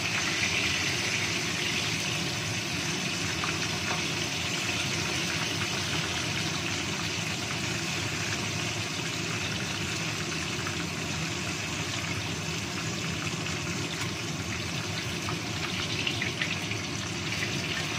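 Whole tilapia frying in hot oil in a wok, a steady sizzle, with a wooden spatula pushing and turning the fish.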